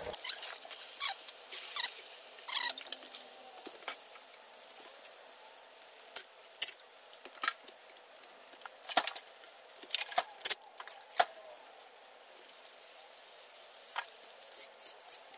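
Scattered sharp metallic clicks and clinks of hand tools and loose parts over a faint hiss, as bolts and accessories come off a bare engine block.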